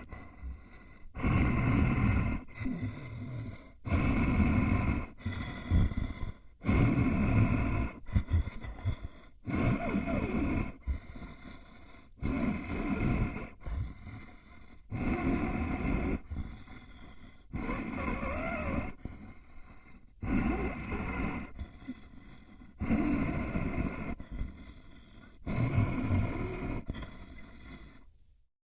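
Zombie breathing sound effect: a rough, creepy voice gasping and gurgling in slow, regular breaths. A loud growling breath alternates with a quieter one about every two and a half seconds.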